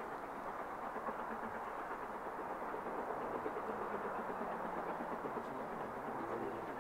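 Steam locomotive and its train approaching, heard as a faint, steady rumble on the rails.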